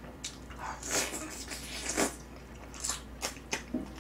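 Close-up eating sounds: biting into and chewing pieces of braised chicken, in irregular wet bursts, with a few sharp clicks from metal tongs.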